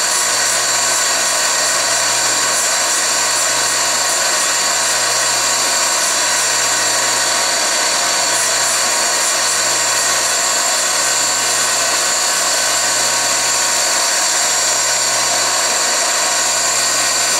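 Lisle drill grinder's motor and wheel running steadily while grinding the lip of a half-inch twist drill, in sped-up footage: a steady, even whine over a hiss.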